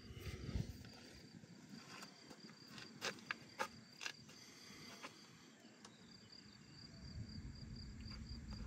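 Steady high-pitched buzz of insects in a summer meadow, with a handful of sharp clicks about three to four seconds in and a brief tone at the very start.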